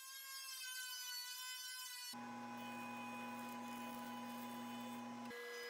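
Woodworking machine motors running with a steady whine, first a benchtop thickness planer, then a jointer after an abrupt change about two seconds in. The tone changes abruptly again near the end.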